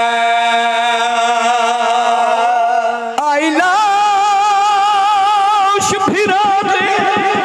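A man's voice holding a long sung note into a microphone, wavering with vibrato, then stepping up to a higher held note about three seconds in; near the end the note breaks into a fast pulsing.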